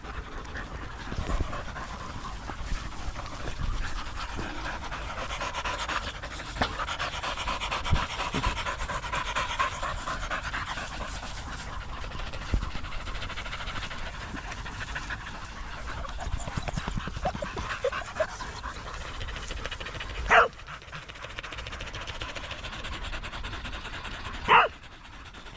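Dogs panting rapidly and steadily close to the microphone. Twice near the end comes a short, sharp sound, louder than the panting.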